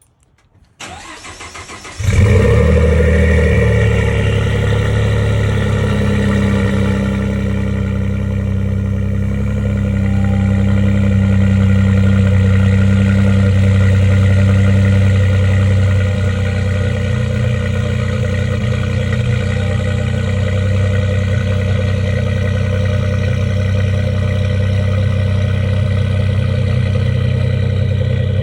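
Ford F-150's 3.5 EcoBoost twin-turbo V6 on a cold start: the starter cranks for about a second, then the engine catches and settles into a steady idle.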